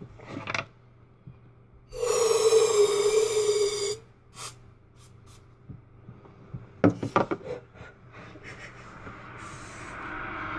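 Aerosol room-spray can spraying in one steady hiss of about two seconds, followed later by a few short knocks.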